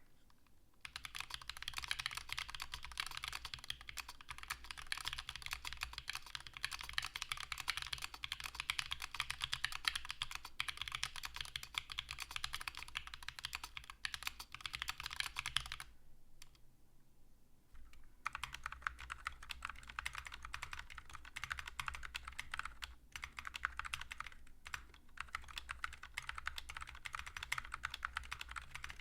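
Steady typing on a mechanical keyboard with tactile switches: Gateron Baby Kangaroo V2 switches in a Preonic ortholinear keyboard for about sixteen seconds, then a two-second pause, then typing on Gazzew U4Tx RGB tactile switches in a ZSA Moonlander split keyboard.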